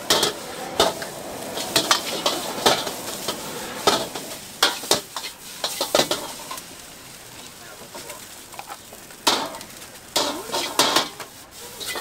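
Metal ladle clanking and scraping against a wok as egg fried rice is stir-fried, the rice sizzling underneath. The strikes come irregularly, ease off for a couple of seconds past the middle, then return in a quick run near the end.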